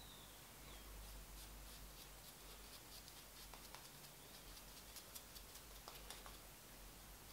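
Faint scratching of a razor cutting beard stubble through shaving cream, a rapid run of short rasping strokes.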